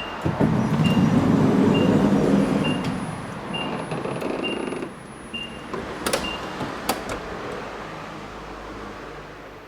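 Nissan Serena C27 power sliding door running, with its warning chime beeping about once a second while the door motor and rollers move it. Two sharp clunks come about six and seven seconds in, as the door reaches the end of its travel. This is the left sliding door that the owner reports has started creaking.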